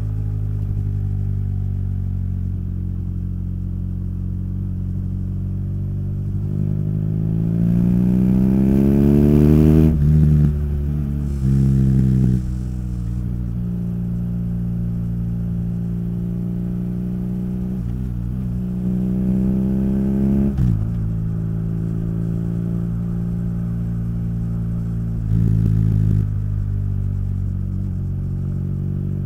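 BMW R nineT's boxer-twin engine heard through its Akrapovič exhaust on the move: steady running, rising in pitch under acceleration and dropping sharply at an upshift about ten and again about twenty seconds in, with a short burst of extra throttle twice.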